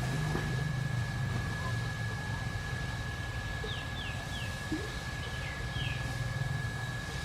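Steady low hum with a thin constant high tone, and a quick run of about five short falling bird chirps a little past halfway.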